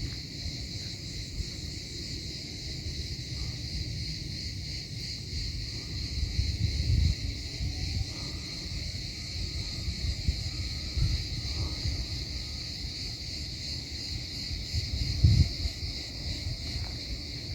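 Insects chirring in a steady high-pitched drone, with wind buffeting the microphone in gusts, strongest about seven seconds in and again near the end.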